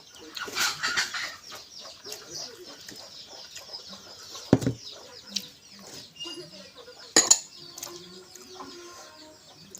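Chickens clucking in the background with small birds chirping, over a few close knocks and clicks, the loudest a low knock about halfway through.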